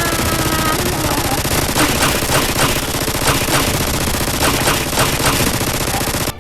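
Rapid automatic gunfire, a machine-gun sound effect firing in one continuous burst, with louder shots standing out several times a second. It cuts off abruptly near the end.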